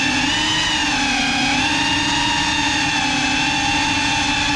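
Small FPV quadcopter's electric motors and propellers whining in flight at a nearly steady pitch, with small shifts in pitch as the throttle changes.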